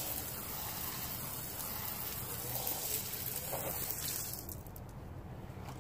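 Garden hose spraying a stream of water onto a rubber tire, rinsing off bleach cleaner. The steady spray and splash stop about four and a half seconds in.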